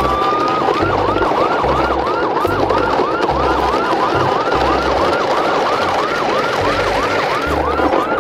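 Electronic siren: a rising wail that switches about half a second in to a fast yelp, about three rising sweeps a second, over a low pulsing beat.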